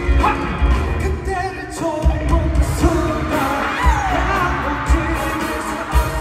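Male pop vocalist singing into a microphone over a live band with a steady kick-drum beat, heard through the arena PA from the audience.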